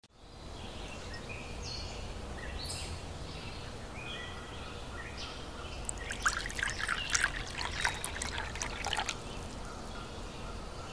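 Birds calling over a low outdoor background. From about six seconds in, tea is poured from a steel kettle into a glass, splashing and trickling for about three seconds before stopping.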